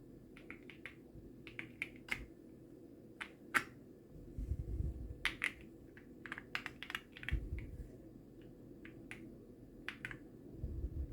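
Keys being pressed on a Keysme Lunar 01 mechanical keyboard with Gateron Weightlessness switches: irregular clicky keystrokes, some single and some in quick runs, with a couple of low thuds near the middle.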